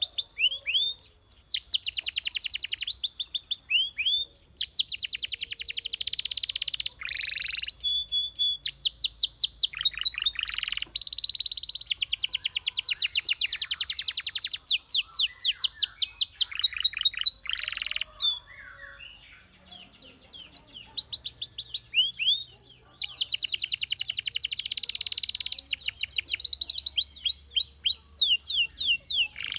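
Belgian canary singing: fast trills of quick falling notes, repeated in tours of a second or two, with a short break a little past the middle.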